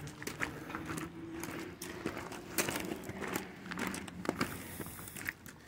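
Footsteps crunching on a loose gravel and stone trail, several people walking uphill at an uneven pace.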